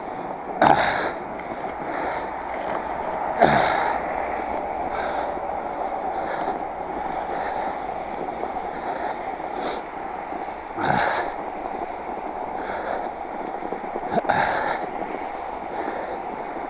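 Fat bike's wide tires rolling through fresh, loosely packed snow: a steady rushing noise of riding, broken by four short, louder bumps spread through.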